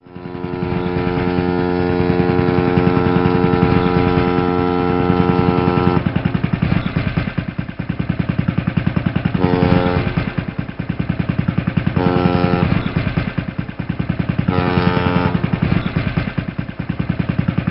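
Motorboat engine running with a fast, even pulse. A steady pitched tone rides over it for about the first six seconds, then comes back three times as short bursts a couple of seconds apart.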